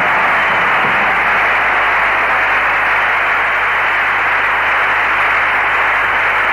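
Dense audience applause at the end of a live concert song, a steady even wash of clapping.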